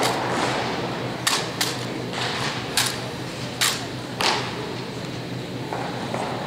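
Sharp slaps and knocks of hands striking a wooden drill rifle and boots striking a concrete floor during an exhibition drill routine. There are about six at uneven spacing in the first four and a half seconds, then a few fainter ones as he marches off.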